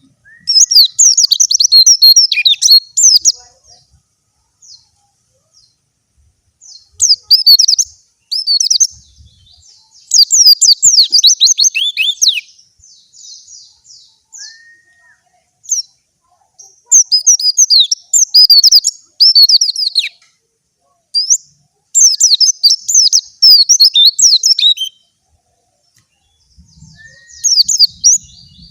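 Young white-eye (pleci) singing in bursts of fast, twittering song, about six phrases of a few seconds each with short quiet gaps and a few faint single notes between them.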